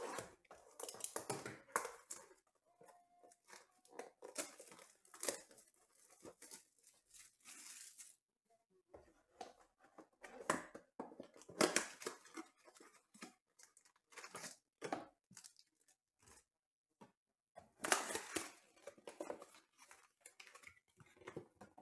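A cardboard trading-card blaster box being slit open with a box cutter and unpacked by hand: irregular rustling, scraping and tearing of cardboard and plastic wrap, with a longer tearing stretch about six to eight seconds in, and foil card packs crinkling as they are pulled out and stacked.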